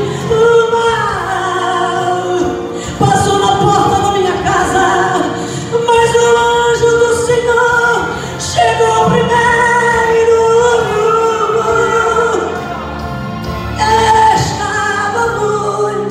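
A woman singing a gospel song into a microphone, amplified through loudspeakers, in long held notes broken by short pauses between phrases.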